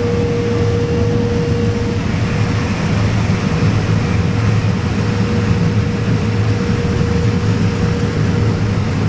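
Claas Lexion combine harvester running steadily: a constant low drone with a steady whine over it.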